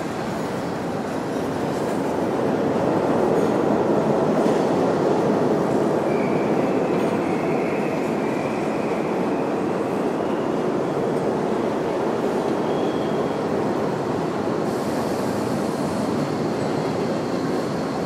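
Subway train rumbling along the rails at a station platform, swelling over the first few seconds and then holding steady, with a faint high squeal of the wheels partway through.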